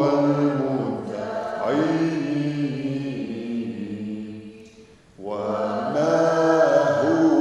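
Slow, chant-like Maronite liturgical hymn sung by voices in long held phrases. The singing dies away about four and a half seconds in for a breath and starts again a moment later.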